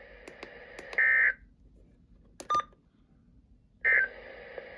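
Weather radio receiver sounding short bursts of EAS/SAME digital data tones, the warbling end-of-alert code: one burst about a second in and another near the end, with faint static between, which drops out for a moment broken by a click.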